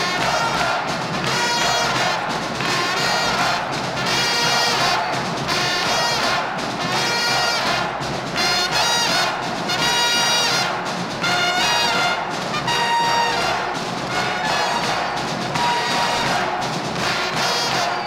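High school pep band playing a brass-led tune in short, punchy phrases.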